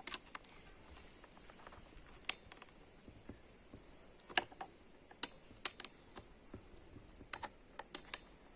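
Scattered light clicks and taps of a tool and parts being handled while the screw holding the grinder's side handle is tightened, about ten irregular clicks.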